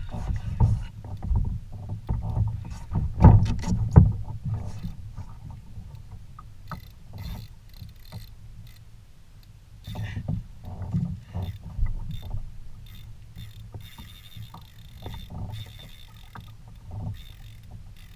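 Knocks and thumps on a plastic fishing kayak's hull over a steady low rumble of water and wind on the hull-mounted microphone; the two loudest thumps come about three and four seconds in, with scattered lighter knocks after.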